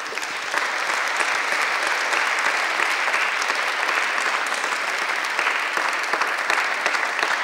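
Audience and panel applauding: steady, dense clapping from a seated crowd.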